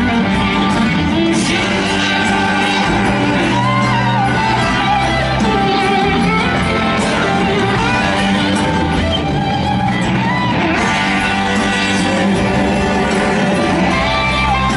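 Live rock band playing: electric guitars over bass and drums, recorded from the audience.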